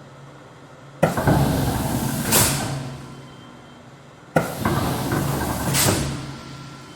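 A stamp sound effect played twice, the same each time: a sharp hit, then about two seconds of mechanical clatter that swells into a brief hiss and fades away.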